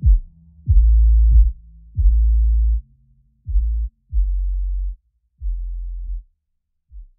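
Electronic music made of deep bass notes, each opening with a quick downward swoop. The notes grow quieter and further apart, and the music stops shortly before the end.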